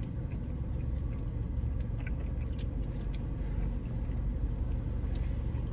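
Steady low hum inside a car cabin, with faint scattered clicks and rustles of someone rummaging beside the seat for a hot sauce bottle.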